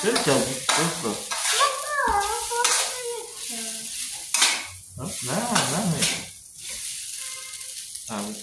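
Rice frying in a pan on a gas stove, sizzling, while a metal spatula stirs it, scraping and clinking against the pan again and again. Voices come and go in the background.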